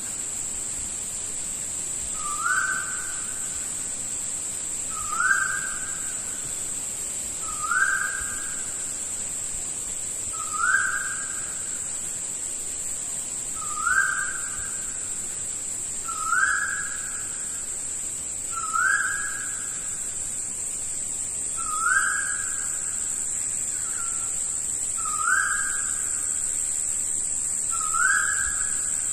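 A bird's short rising whistled call, repeated about ten times at even intervals of two and a half to three seconds, over a steady high-pitched insect drone.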